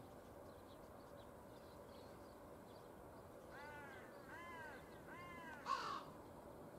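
A crow cawing: three faint arched caws about three-quarters of a second apart, then one louder, harsher call near the end.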